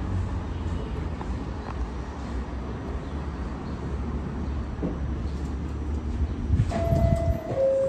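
A subway train stands idling with its doors open, its equipment giving a low, steady hum. Near the end a two-note descending door chime sounds, the warning that the doors are about to close.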